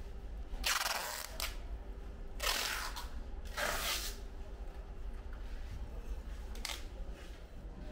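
Five short hisses, each about half a second long, with a steady low hum underneath.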